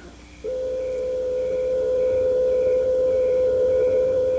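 A car horn sounding one long, steady blast at a single pitch, starting about half a second in and held for four seconds.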